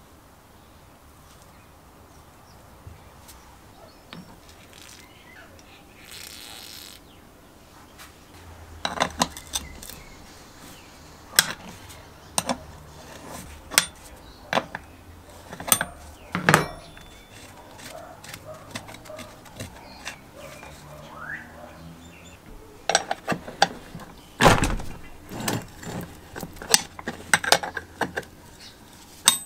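Rusty steel parts of a manual chain hoist clinking and knocking as its gear and brake end is taken apart by hand: scattered sharp metallic taps and clicks, starting about a third of the way in, with one heavier knock about three-quarters through.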